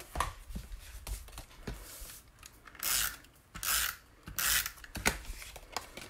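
Cardstock being handled on a craft mat: small taps and rustles, then three short papery scrapes, about a second apart, in the second half.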